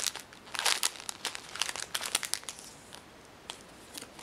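Clear plastic packaging bags crinkling as the squishy keychains sealed inside are squeezed and turned in the hands. The crackling is dense for the first two and a half seconds or so, then dies down to a few faint ticks.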